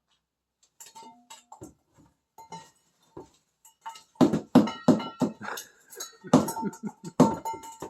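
A macaw bashing his food bowl around in play: scattered light knocks at first, then a rapid run of loud clanks and clinks from about four seconds in, the bowl ringing briefly after the hits.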